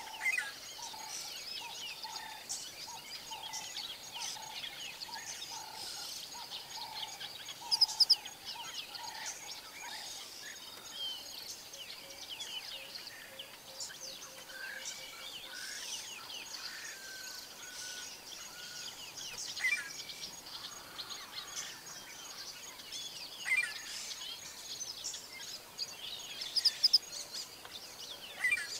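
Daytime savanna ambience: many small birds chirping and calling over a steady high insect drone. A low repeated call runs through the first third, and a few louder, brief sounds stand out later.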